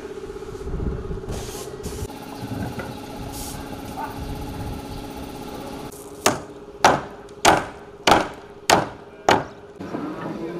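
A steady hum, then six hammer blows on wooden formwork boards, evenly spaced about 0.6 seconds apart, starting a little past the middle.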